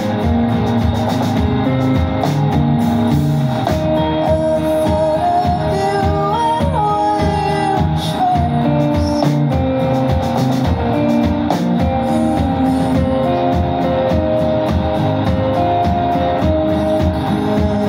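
Live indie rock band playing: electric guitars over bass guitar and drums, with a melody line gliding up to a high note about six seconds in and falling back.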